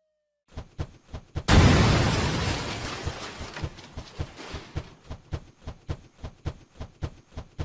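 Cartoon explosion sound effect: after a few short thuds, a loud blast about a second and a half in that dies away slowly over several seconds, with regular low thuds about three a second beneath it.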